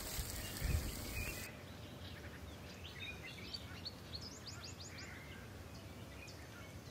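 Faint outdoor ambience: a steady hiss with low rumble for the first second and a half, then a quieter background with small birds chirping in quick short notes.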